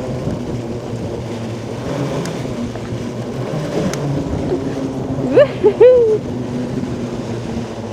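Steady running hum and wind rush of a quad-motor electric ATV on the move. A little past the middle, two loud, short, high-pitched cries, the first rising sharply and the second arching, stand out above it.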